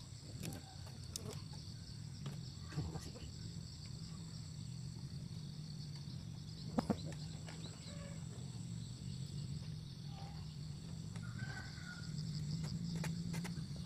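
Steady high-pitched insect chorus over a low hum, with a few light clicks as a thin bamboo stick is worked through the top of a bamboo eel trap; the sharpest is a quick double click about seven seconds in.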